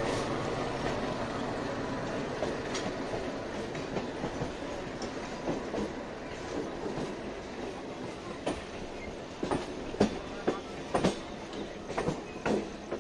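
Train running on the rails, its steady running noise slowly dying down, with sharp irregular clacks of the wheels over rail joints in the second half.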